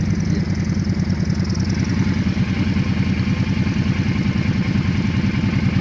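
Quad bike (ATV) engine running steadily at idle, an even, rapid pulsing with no revving.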